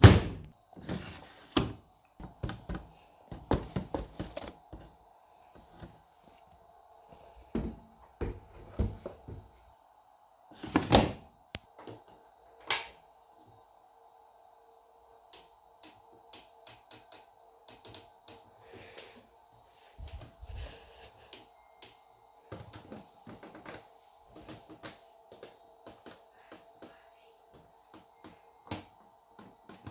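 A run of irregular clicks, knocks and thuds, loudest and densest in the first dozen seconds, with a steady hum setting in about ten seconds in and continuing under lighter clicking.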